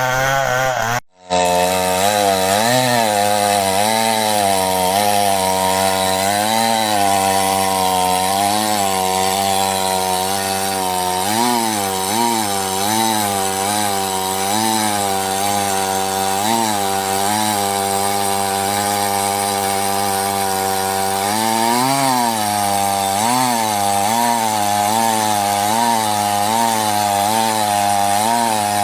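Stihl 070 two-stroke chainsaw running hard while cutting wood. Its engine pitch wavers up and down as the chain takes and eases the load. The sound breaks off for a moment about a second in.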